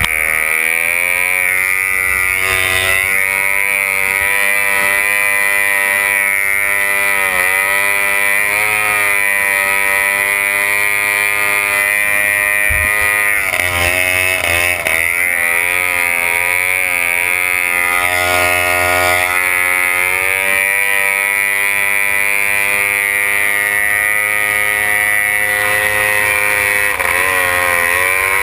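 Racing outboard motor of a C-class runabout race boat running at high revs, heard from aboard the boat; its steady pitch dips briefly and climbs back a few times, most deeply about halfway through.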